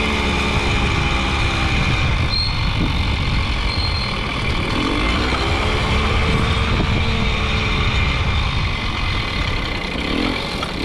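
Jawa Babetta 210 moped's 49 cc two-stroke single-cylinder engine running under way. The engine note drops as the rider slows about a second in, picks up again around five seconds, then dips and rises once more near the end.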